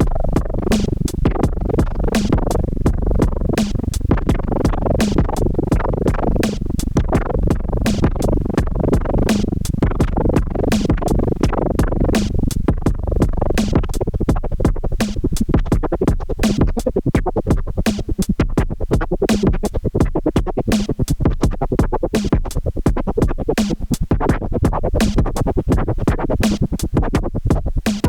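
Improvised electronic music from a Roland TR-6S drum machine and analog synthesizers, with a radio signal run through a Cre8Audio West Pest synth. It sounds like a dense, crackly stream of fast clicks over a low note pulsing about once a second.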